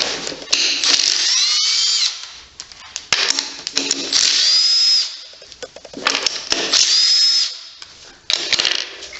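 Power drill run in several short bursts of about a second, its motor whine rising as it spins up each time, backing screws out of an engine casing during a teardown.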